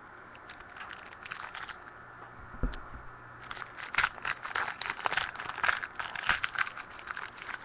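Plastic wrapper of a trading-card pack being torn open and crinkled by hand, an irregular rustling crackle that gets busier in the second half, with one soft low bump about two and a half seconds in.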